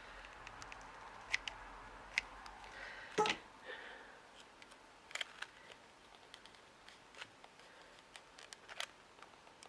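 Light clicks and taps of small craft pieces being handled and set down on a work surface, with one louder knock about three seconds in.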